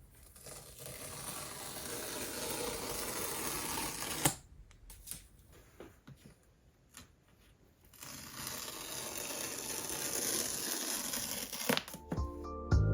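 Paper packaging of a MacBook Pro box being torn open in two long, steady tears of about four seconds each. A sharp click ends the first, and lighter clicks of handling come between and after.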